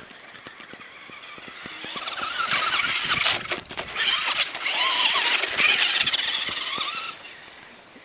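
Traxxas Rustler RC truck's brushed electric motor and drivetrain whining as it drives over snow, the pitch rising and falling with the throttle. Loud for about five seconds from about two seconds in, with a brief drop in the middle.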